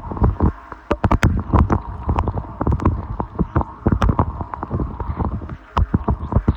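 Maytag dishwasher mid-wash, heard from inside the tub: water from the spray arms splashing and pattering irregularly against the tub walls, over a steady hum from the wash pump.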